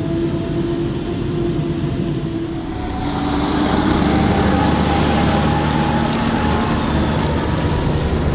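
A forage harvester chopping maize, with a steady high whine from its chopper and blower over the engine. About three seconds in, a tractor pulling a loaded silage trailer drives past on a gravel track, its engine and tyres louder as it goes by.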